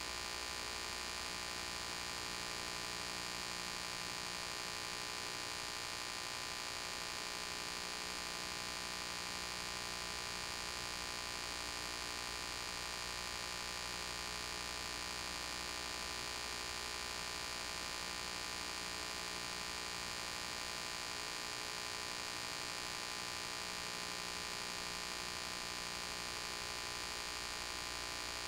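Steady electrical mains hum with a faint hiss: many steady tones stacked from low up to a thin high whine, with no change and no game sounds.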